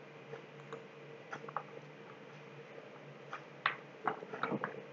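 Computer mouse clicking: scattered single clicks at an uneven pace, coming closer together in the second half, over a faint steady hum.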